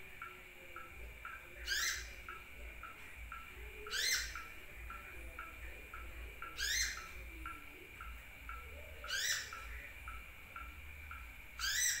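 Sunbird (kolibri) calling: a sharp, high rising chirp repeated five times, about every two and a half seconds, as lure song for other sunbirds. A faint quick ticking about twice a second runs underneath.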